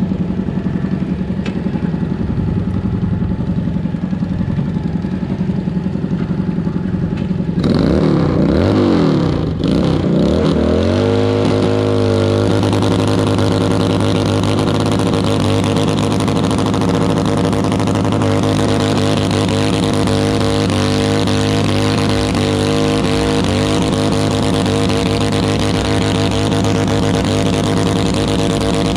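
Modified pulling garden tractor's engine running at a steady low speed, then revved hard about eight seconds in. Its pitch swings up and down for a few seconds before it settles into a steady high-rpm run under load, pulling the weighted sled.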